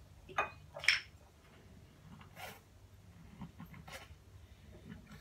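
A few short clinks and taps from small objects being handled, irregularly spaced, with the loudest about a second in.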